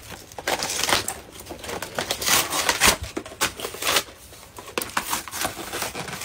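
Cardboard toy box being torn open and pulled apart by hand: a run of irregular short rips and scrapes of card.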